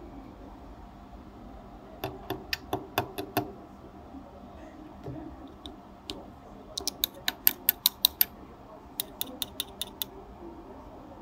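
Three quick runs of sharp metallic taps and clicks, a small screwdriver tip knocking against the metal frame and parts of a CD player's laser mechanism; the middle run is the fastest and loudest.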